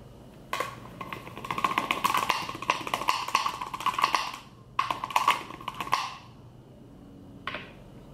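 Rapid clattering and tapping of small hard items, such as makeup containers and tools, being handled and rummaged through. It starts about half a second in, breaks off briefly around four and a half seconds, and stops about six seconds in. A single short knock follows near the end.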